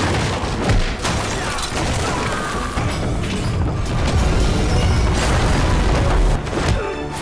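Action-film fight soundtrack: dramatic music under heavy booms and crashes as large wooden structures are smashed and toppled. Several sharp impacts land in the first second or so, then a dense, heavy rumble carries on.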